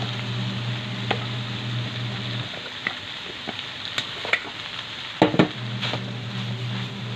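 Cold cooked rice frying in a hot wok with carrots, kangkong and beef, with a steady sizzle. A few sharp knocks of a utensil against the wok, the loudest a quick cluster about five seconds in, over a low steady hum that drops out for about three seconds midway.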